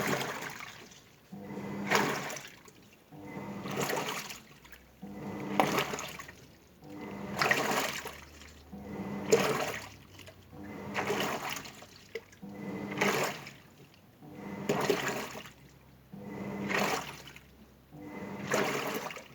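Toshiba washing machine in its Echo Bubble wash, churning water and suds in regular swishing surges about one every two seconds, each with a short motor tone as the wash action starts.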